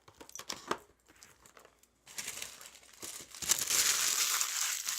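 Plastic wrappers of trading card packs crinkling as they are handled, after a few light clicks and taps; the crinkling grows louder about three and a half seconds in.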